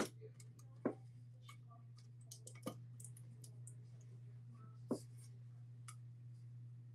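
Faint scattered clicks and light taps from handling a sublimation tumbler while wrapping it with heat tape, the clearest about one, three and five seconds in, over a steady low hum.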